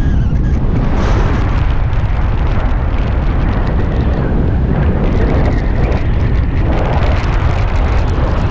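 Wind buffeting the microphone in flight: a loud, steady low rumble that flutters with the airflow.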